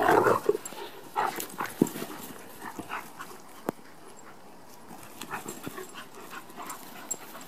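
Two dogs, a German Shepherd and a small white terrier, playing rough: a loud burst of dog vocalising as they tussle right at the start, then short, scattered yips as they chase each other.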